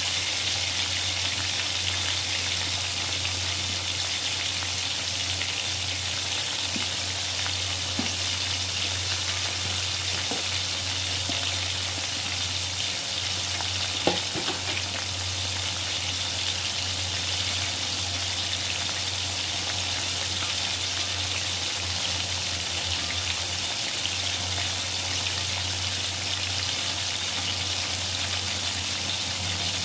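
Flour-coated chicken pieces deep-frying in oil in an aluminium wok, giving a steady sizzle. A single sharp knock comes about halfway through.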